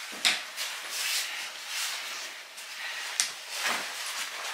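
Rustling and rubbing handling noises, with a sharp click about a quarter second in and another about three seconds in.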